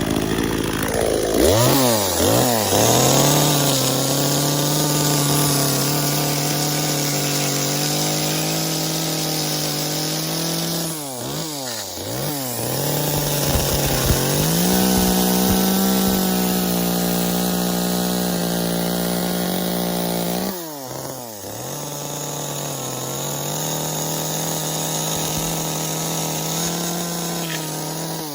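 Chainsaw running at high revs while carving wood. The engine note climbs about a second in and holds steady, dips and picks up again around 11 and 21 seconds in as the throttle and load change, and runs slightly higher in between.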